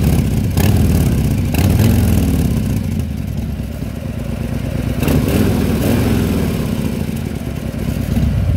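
Harley-Davidson 114 cubic inch V-twin running through a Jekill & Hyde exhaust, idling with a deep uneven beat and a few short throttle blips, one about half a second in, one around one and a half seconds and one around five seconds.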